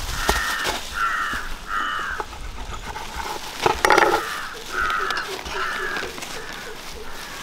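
Crows cawing in a series of short harsh caws, three in quick succession, a pause, then four or five more. A sharp knock sounds about four seconds in.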